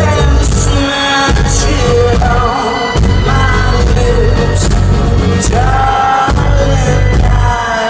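A live rock band playing loudly through the PA, heard from the crowd: heavy bass and drums under a lead melody that bends and slides in pitch.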